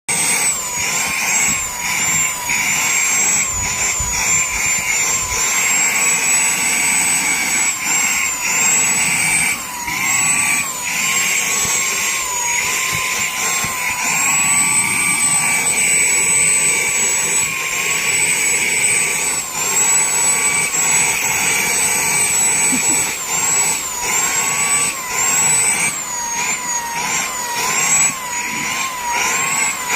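Vacuum cleaner running continuously, its motor whine dipping briefly in pitch again and again as the nozzle is worked through a cat's fur.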